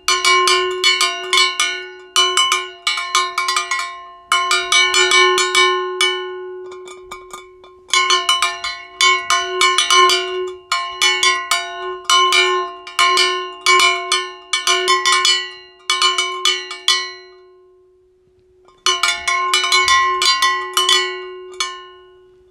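A metallic bell sound effect struck over and over in quick runs, each strike ringing brightly over a sustained low tone. The strikes pause briefly about seven seconds in, die away around the eighteen-second mark, and start again about a second later.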